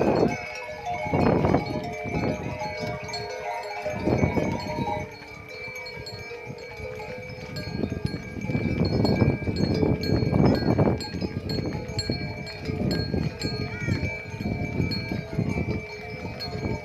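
Many bells on a herd of cows ringing together in a continuous overlapping chime, with animal calls breaking in every few seconds.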